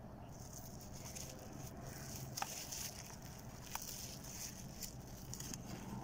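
Faint rustling and handling noise from a plastic-wrapped box and a backpack pocket being handled, with two sharp clicks, one about two and a half seconds in and one a little over a second later.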